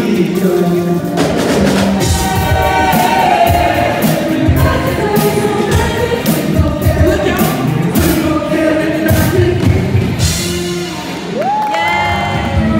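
Amplified music from a live stage show: singers over a steady beat, with one voice sliding up into a long held note near the end.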